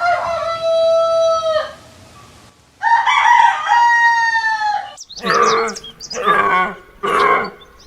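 Rooster crowing twice, long drawn-out calls each held on one pitch, followed by three short, harsh calls in the last few seconds.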